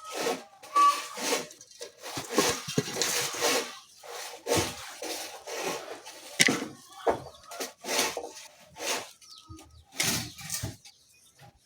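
Charcoal being pounded, a run of irregular crunching strokes at roughly one a second.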